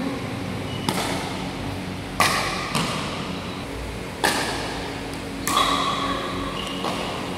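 A pickleball rally: a plastic pickleball is hit with paddles and bounces, making about five sharp pops spaced a second or so apart. The pops echo in a large gym hall over a steady low hum.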